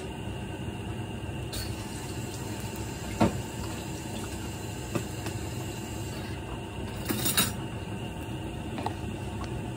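Gas stove burner running under a lidded pot, a steady noise, with a few short knocks: one about three seconds in and a small cluster about seven seconds in.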